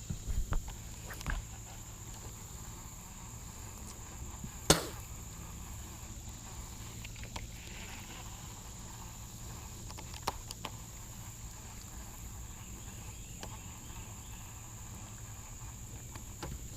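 Quiet outdoor ambience with a steady high-pitched insect drone, broken by a few scattered sharp clicks, the loudest about five seconds in.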